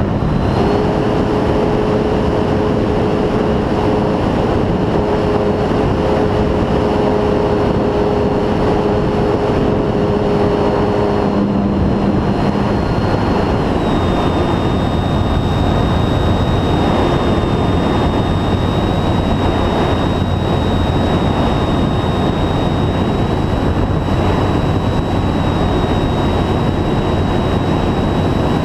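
FMS P-51 Mustang 1450mm electric RC plane in flight, heard from on board: a steady high whine from the motor and propeller over heavy wind noise on the microphone. A lower hum stops a little before halfway, and the high whine drops slightly in pitch soon after.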